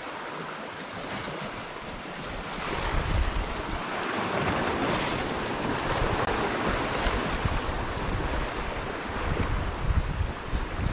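Surf washing on the shore, with wind gusting across the microphone; the wash swells about three seconds in.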